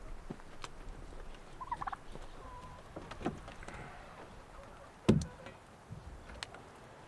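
A turkey gobbling briefly, a quick fluttering call about two seconds in, with scattered light knocks and a single heavy thump about five seconds in.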